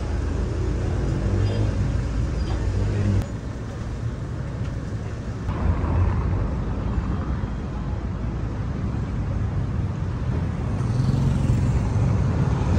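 City street ambience with road traffic running, a steady low rumble under general street noise. It changes abruptly about three seconds in and again about five and a half seconds in.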